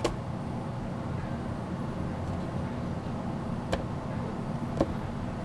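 Steady low mechanical hum, with a sharp click at the start and two fainter clicks later on.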